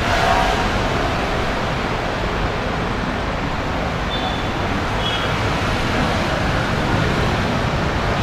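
Steady road traffic noise from a city street.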